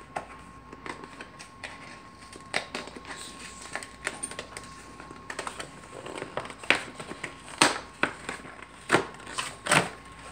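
Cardboard shipping box being opened by hand: flaps scraping and popping open, with cardboard and paper packing rustling and crinkling. The rustles come in scattered handfuls and grow sharper and louder in the second half.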